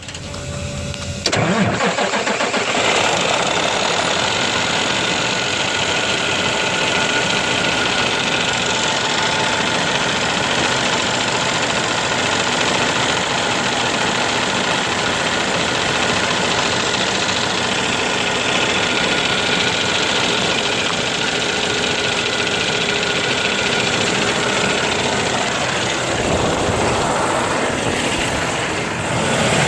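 Cummins ISX diesel truck engine starting about a second in, then running steadily. The uploader blames a bad fuel pump.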